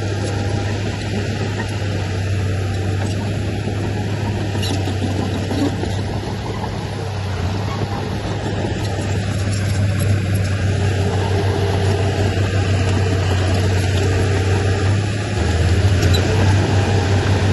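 Heavy diesel engine of earthmoving machinery running steadily with a deep hum, growing a little louder near the end.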